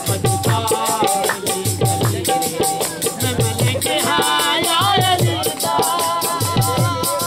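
Saraiki wedding music: dhol drum strokes in a repeating pattern under a wavering, ornamented reed-pipe melody, with a fast, even high rattle.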